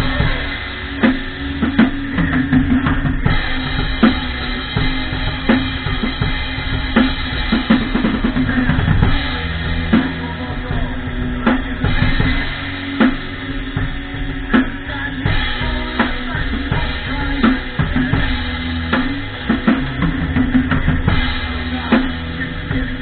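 Drum kit played in a steady, busy beat, with bass drum, snare and cymbal strikes coming several times a second, over a sustained pitched line of music.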